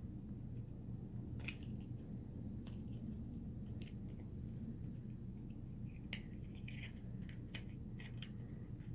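Faint, scattered clicks and light crinkles of thin paperboard being folded, creased and tucked by hand as a small box is assembled, over a low steady hum.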